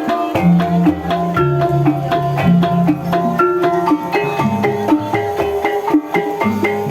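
Javanese gamelan music for an ebeg dance: struck keyed instruments play a quick run of short notes over drum strokes and held low tones.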